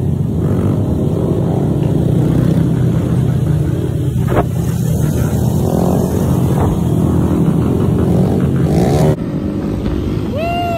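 Small mini-bike motorcycle engines running as a group rides through city traffic, with wind rushing on the microphone. After an abrupt cut near the end, a rider lets out a single falling whoop.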